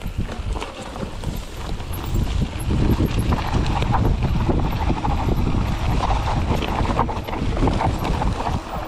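Mountain bike riding fast down a rough dirt trail: tyres rumbling over dirt and rocks, with a constant clatter of knocks and rattles from the bike, and wind buffeting the microphone. The noise builds over the first couple of seconds and then stays loud.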